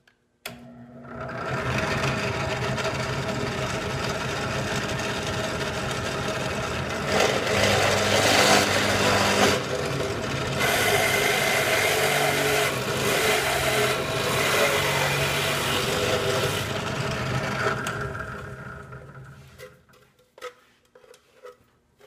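Benchtop drill press running with a hole saw cutting through the wall of a plastic enclosure, a steady motor hum under a harsh cutting noise that is loudest through the middle and dies away near the end.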